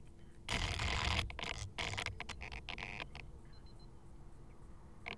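Faint scraping, rustling and clicks of handling close to the microphone, loudest in the first second and a half and then fading to scattered small clicks.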